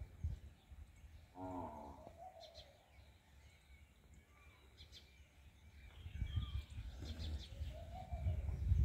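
Rural outdoor ambience: a short, low animal call about a second and a half in, faint bird chirps, and a low rumble that rises over the last few seconds.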